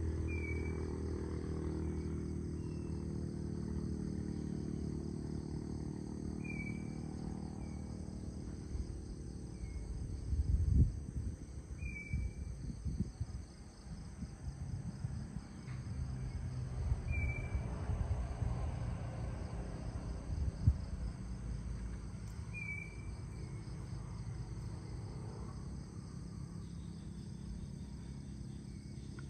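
Crickets and other insects trilling steadily in the pre-dawn dark, with a short high chirp repeating every few seconds. A low droning rumble fades away over the first several seconds, and a few low thumps come near the middle.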